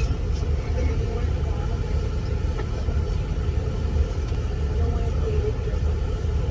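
Steady low rumble of an intercity coach heard from inside the passenger cabin, engine and road noise as the bus drives.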